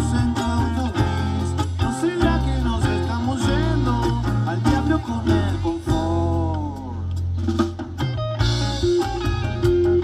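Live rock band playing an instrumental passage: electric guitar lines with notes bending up and down over electric bass and a drum kit.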